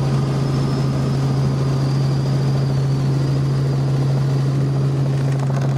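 Helicopter heard from on board: a steady low hum over an even rushing noise of rotor and engine.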